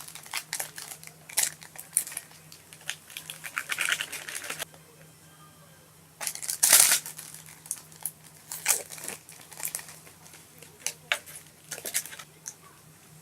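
Plastic packaging of a cup ramen crinkling and rustling in short bursts as it is handled and opened, with a louder tear about halfway through.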